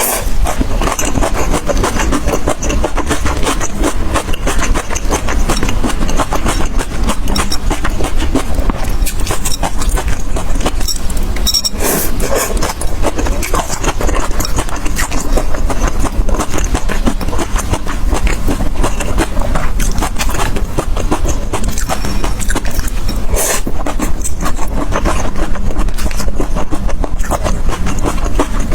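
A metal spatula scraping and clattering against a wok during stir-frying, as a continuous, dense run of scrapes and clicks.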